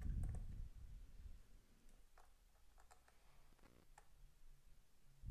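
A low rumble of handling at the start, then a few faint, scattered light clicks: a small pentalobe screwdriver and tiny screws against a MacBook Air's aluminium bottom case as its screws are taken out.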